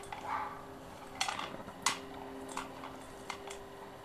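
Golden retriever eating from a metal food bowl: a short scrape near the start, then several sharp clinks against the metal. A faint steady hum underneath.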